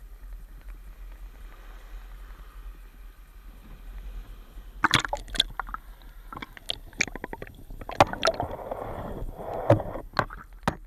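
Sharp knocks and clatter against a small boat, with water sloshing, starting about five seconds in over a faint low rumble.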